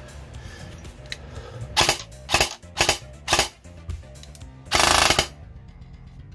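Evolution Recon airsoft electric rifle (AEG) cycling its gearbox as the trigger is pulled: four single shots about half a second apart, then a short full-auto burst lasting about half a second.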